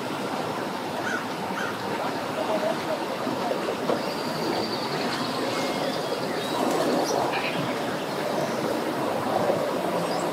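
Mercury 225 outboard motor running steadily at low throttle, pushing a bass boat up onto its trailer, with the propeller churning the water.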